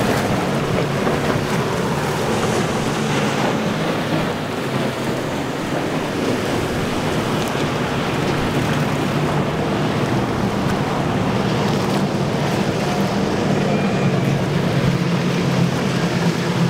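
Quad Mercury 400 outboards on a Midnight Express 43 center console running at speed, a steady engine drone over the rush of the wake and some wind noise. The engine tone grows stronger about two-thirds of the way through.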